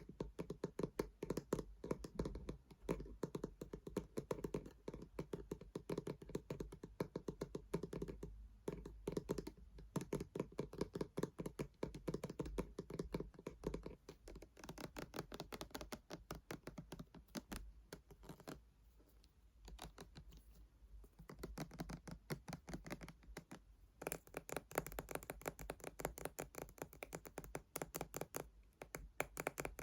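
Fingernails tapping rapidly on hard objects, a dense run of small clicks, with a short lull about two-thirds through and brighter, sharper taps after it.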